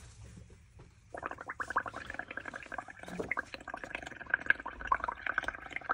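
Air blown through a drinking straw into a tub of frothy paint mix made of coffee and distress oxide ink, giving a rapid, continuous bubbling that starts abruptly about a second in.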